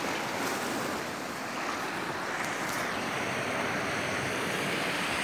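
Sea surf washing and breaking against rocks, a steady rushing noise.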